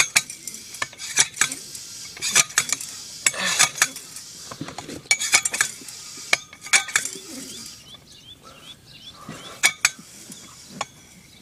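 Tire pump being worked to inflate a small tractor tire whose bead is pulled toward the rim by a tightened string, so that the bead seats. Each stroke gives a metallic clack and a short hiss, repeating about every second and a half.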